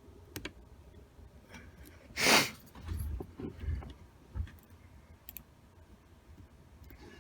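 Handling noises from picking a pin-tumbler padlock: faint clicks of the pick and tension tool, one loud scraping rattle about two seconds in, then a few dull knocks.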